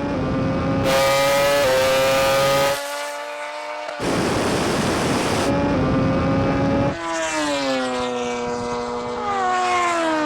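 Drag-racing vehicles running at speed, a strong engine note held at a steady pitch and twice swamped by loud rushing wind noise. About seven seconds in, the note falls in pitch as a vehicle slows.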